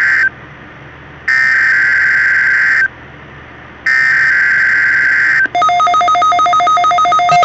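NOAA Weather Radio SAME alert header over a weather radio's speaker: bursts of screechy digital data tones, the end of one and then two more, each about a second and a half long with a gap of about a second. About five and a half seconds in, rapid pulsed alarm beeping starts, signalling the weekly test of the warning alarm system.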